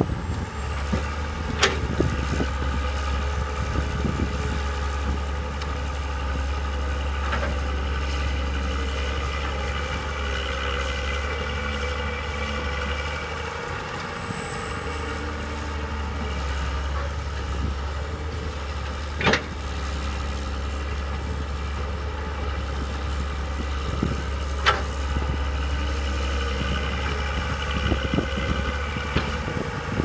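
Two hydraulic excavators, one a Komatsu, with their diesel engines running steadily under load while digging and dumping soil. A few sharp clanks cut through the engine sound.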